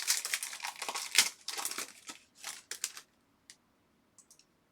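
Crinkling and rustling of trading-card pack wrappers and cards being handled, in quick bursts for about three seconds. Then it goes almost quiet, with a few faint ticks.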